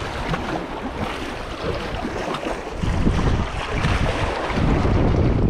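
Small waves washing and splashing against jetty rocks, with wind buffeting the microphone. The wind rumble grows stronger in the second half.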